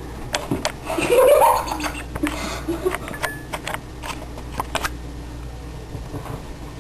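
A person's short vocal sound, rising in pitch, about a second in, with scattered light clicks and taps throughout.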